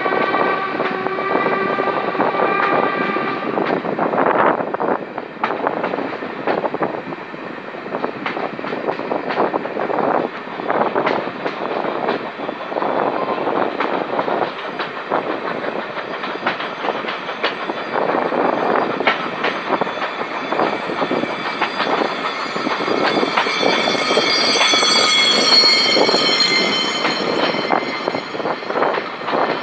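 Passenger train running, heard from an open carriage window: wheels clatter over the rail joints over a steady rumble. The locomotive's whistle sounds as a several-note chord for about three seconds at the start. A high, drawn-out squeal rises over the clatter for several seconds near the end.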